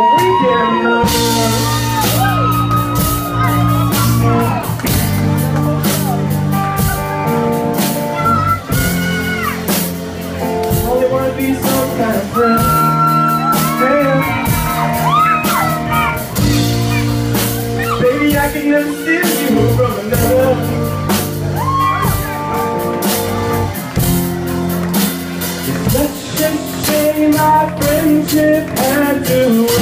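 Live band playing: a male lead singer on a handheld microphone over drums and sustained chords, with drum hits keeping a regular beat throughout.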